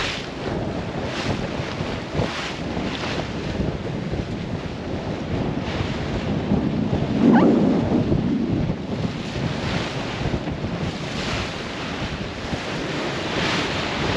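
Strong wind buffeting the microphone and waves rushing and splashing against the hull of a sailboat driving through a rough sea, with repeated surges as the bow meets the waves. The wind rumble is loudest about halfway through.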